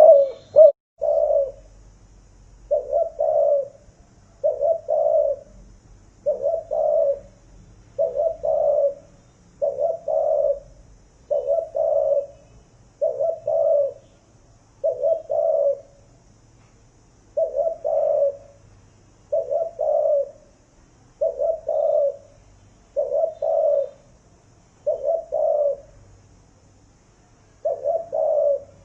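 Spotted doves cooing: a low coo phrase, about a second long, repeated about every two seconds, with a few longer pauses between phrases.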